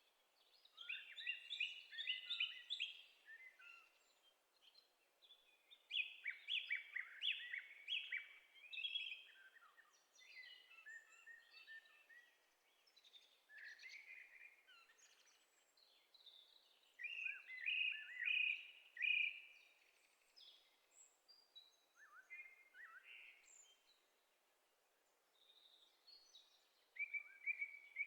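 Birds chirping and singing in quick bursts of notes, each phrase lasting a second or few, with short pauses between.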